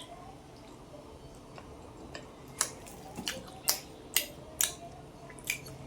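Close-miked eating sounds of chewing luchi and mutton: a quiet stretch, then about seven sharp, wet clicks that come irregularly over the last three seconds.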